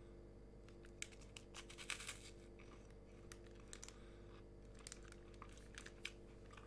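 Faint scattered crinkling and scratching of a plastic snack wrapper being handled, with a short cluster of crinkles about two seconds in.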